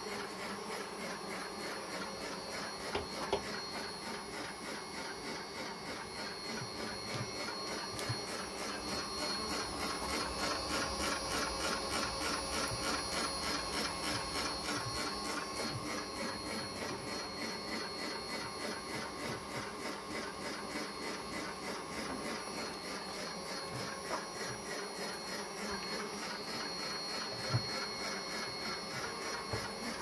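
Electric honey extractor running: a steady motor hum with an even pulsing from the spinning drum, and a couple of short knocks.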